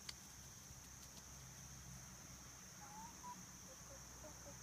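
Faint, steady high-pitched chorus of insects, with a click at the start and a few faint short calls in the second half.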